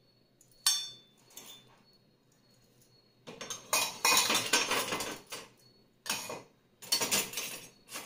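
Stainless-steel vessels and ladles clinking and clattering as they are set into a dishwasher rack: one sharp ringing clink about a second in, then two longer spells of rattling metal in the second half.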